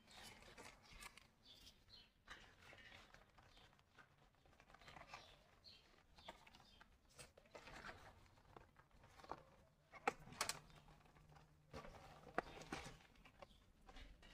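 Faint rustling and scattered light clicks of a staghorn fern being handled and eased out of its pot, with a few sharper clicks about ten and twelve seconds in.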